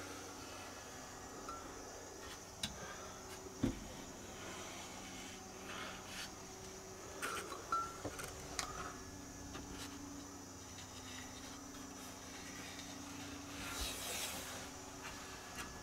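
Quiet room with a faint steady hum, broken by a few light clicks and taps and a short soft rustle near the end: hand and camera handling as a finger is run along the cedar shower seams.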